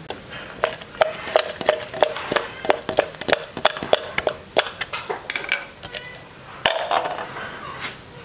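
Food preparation: a run of sharp knocks, about three a second, for some five seconds, like chopping or pounding, then a rougher clatter near the end.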